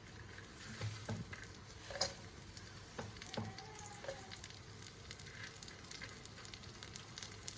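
Raisins frying in ghee in a pan: a faint steady sizzle, with a spoon knocking against the pan about once a second as they are stirred.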